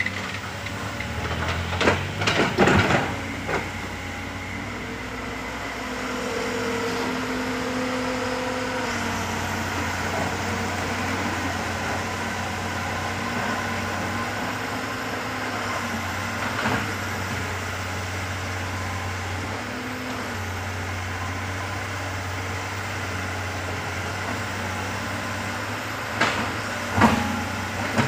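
Komatsu hydraulic excavator's diesel engine running steadily under load while it digs and swings. A few sharp knocks of the bucket and boom come about two seconds in and again near the end.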